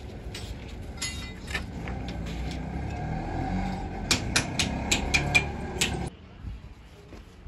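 Foundry workshop noise during aluminium pouring into steel moulds. A steady low rumble carries a quick run of sharp metallic clinks and knocks about four to six seconds in. The rumble stops abruptly about a second before the end.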